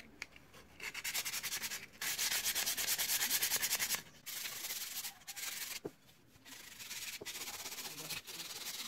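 Sandpaper rubbed by hand along the edge of a wooden slingshot barrel blank: spells of quick back-and-forth scratchy strokes, busiest in the first few seconds, broken by short pauses.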